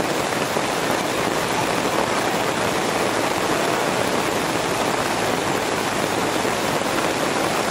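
Steady rain falling on the tarp overhead, a constant even hiss with no breaks.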